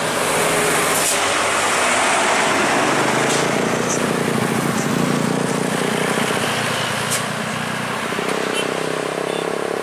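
Loaded cargo truck's diesel engine running as it drives close past, with tyre and road noise, loudest in the first half and then fading. From about eight seconds in, another engine rises in pitch as a vehicle accelerates.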